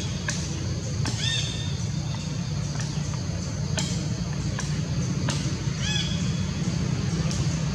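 A steady low hum like a running engine or distant traffic, with a few short high chirps and faint clicks over it.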